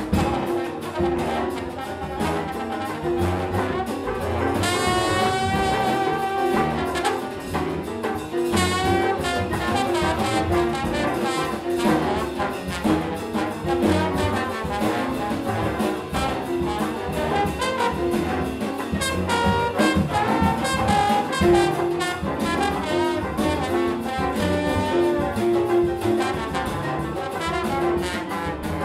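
Big band jazz, with a trombone soloing over the brass and saxophone ensemble.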